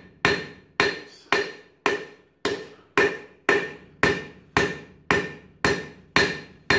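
Forging hammer striking a red-hot mild steel bar on an anvil in an even rhythm of about two blows a second, each blow ringing out briefly, as an edge bevel is forged by compression.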